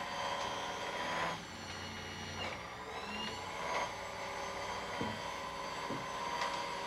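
Electric motor and lifting cams of an Escalera stair-climbing hand truck running steadily under a heavy load as it descends stairs. The motor's pitch dips about two and a half seconds in and recovers, and two light knocks come near the end as the wheels are set down on a step.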